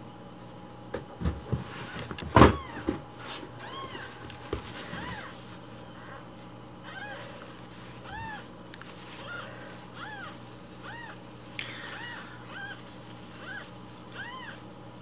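Newborn kitten mewing: short, high calls that rise and fall in pitch, about one a second through the second half. A few knocks and one sharp thump come about two seconds in.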